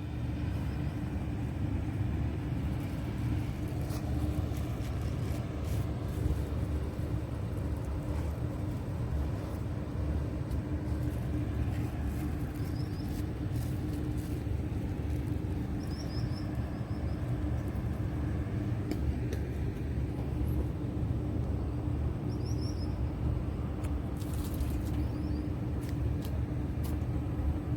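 A steady low rumble with a constant hum running under it, with a few faint, short, high chirps and a brief burst of noise near the end.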